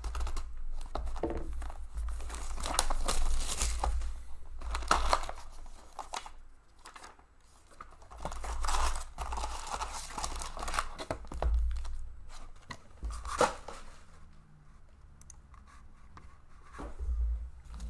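Plastic wrap being slit and torn off an Upper Deck SP Authentic hockey card box, then the cardboard lid opened and the foil packs crinkling as they are pulled out and stacked. The tearing and rustling are loudest in the first six seconds and again around nine to eleven seconds, with a sharp click about thirteen seconds in.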